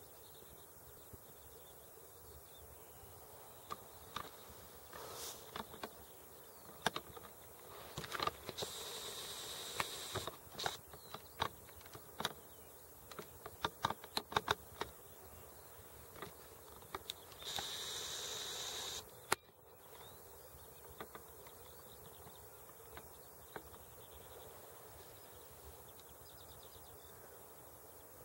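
Camera's zoom motor buzzing twice, about two seconds each time, starting and stopping abruptly, amid scattered clicks and knocks from the camera being handled. The rest is faint outdoor background.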